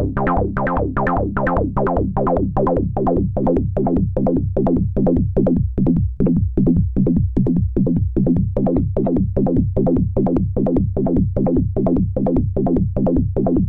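Moog Rogue two-oscillator analogue monosynth playing a repeating four-note sixteenth-note sequence from a Korg SQ1 step sequencer, with its two oscillators tuned a fifth apart. It plays short plucked bass notes, about four a second, in a disco style, and the tone of the notes shifts as the synth's knobs are turned.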